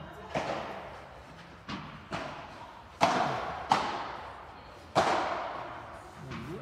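Padel rally: about six sharp hits of the ball against rackets and the court, the loudest in the middle, each ringing on in a large covered hall.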